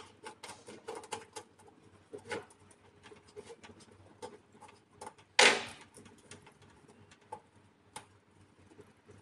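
Irregular small clicks, ticks and scuffs of plastic cable glands being turned and cables pushed through them by gloved hands on a solar PV combiner box, with one louder scrape about five and a half seconds in.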